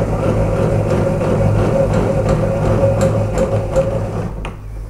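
Bosch GTS 254 table saw's blade-height mechanism being cranked by hand, raising the 10-inch blade. It gives a steady mechanical hum that stops about four seconds in, once the blade is up.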